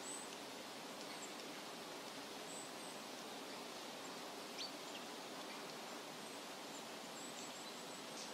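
Faint, steady outdoor background hiss with a few brief, high bird chirps.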